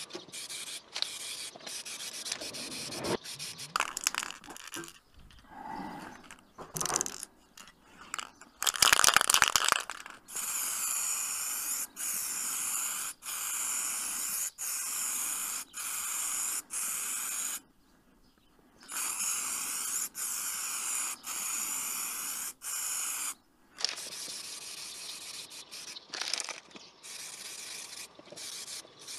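Irregular rubbing and scraping by hand, then an aerosol spray paint can hissing in long steady bursts with short pauses between them, and quieter rubbing again near the end.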